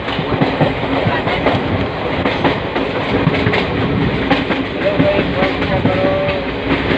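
Passenger train rolling along the track: a steady rumble with the wheels clattering over rail joints.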